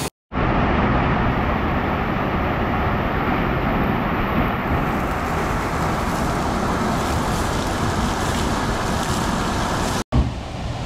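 Steady, loud rush of water gushing out of water-slide run-outs and splashing into a pool. It drops out for an instant near the end.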